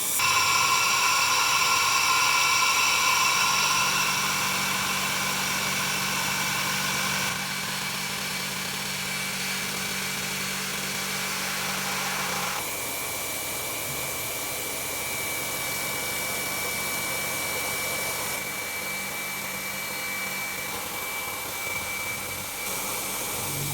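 CNC milling machine facing a 6061 aluminium block with a SuperFly face mill: the spindle runs with a steady whine while the cutter shaves the metal with a continuous hiss. The sound is loudest for the first several seconds, then changes in character about a third of the way in and again about halfway, as the cutter works across the face.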